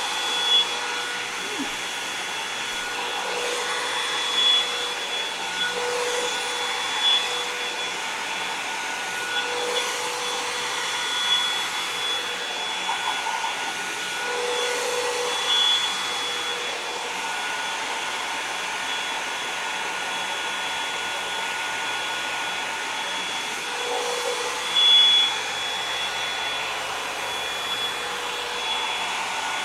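A Revlon One-Step hot-air brush (hair dryer and volumizer) runs steadily: a whirring blower with a steady whine, swelling briefly every few seconds, most strongly near the end.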